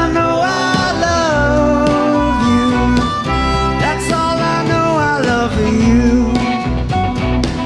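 Live country band playing an instrumental passage: a lead instrument sliding between notes over guitar and a steady bass.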